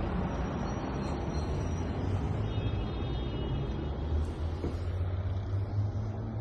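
Steady rumble of road traffic, with a strong low drone and a few faint high tones.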